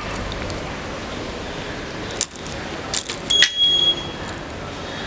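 Keys jangling and clinking in a hand, a cluster of metallic clicks and short rings between about two and four seconds in, over a steady background hiss.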